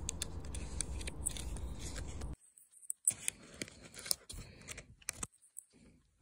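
Small clicks and scrapes of fingers handling a laptop keyboard's flat ribbon cable at its connector, fiddling it into the slot. A low background hum under the first couple of seconds cuts off abruptly, leaving scattered light ticks.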